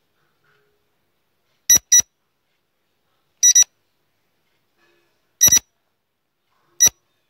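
Quiz countdown-timer sound effect: short, high-pitched electronic beeps, a quick double beep three times about every two seconds, then a single beep near the end.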